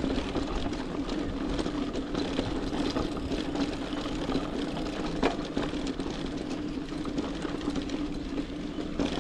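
Mountain bike rolling along a loose sand-and-dirt trail: tyre and drivetrain noise with a steady hum, over scattered small clicks and rattles from the bike.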